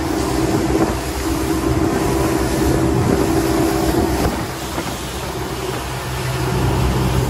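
Twin outboard motors running at speed, a steady drone over the rush of wind and water from the planing hull.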